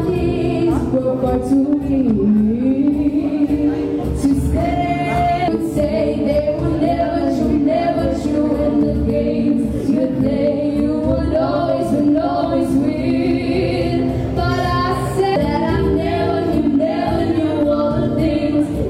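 Live female vocals sung into a handheld microphone over an instrumental backing track, amplified through a PA: a pop song with held, sliding notes.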